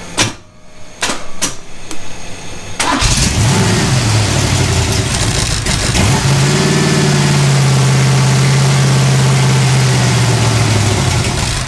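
Chevrolet 350 small-block V8 with a solid-lifter Comp Cams camshaft, running on an engine test stand. After a few sharp clicks it fires about three seconds in, revs up and down, then is held at a steady raised speed for cam break-in, and drops away right at the end.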